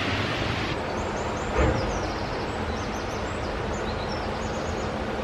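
A steady rushing din with a faint low hum under it, small birds chirping in short high runs several times, and a single low thump about a second and a half in.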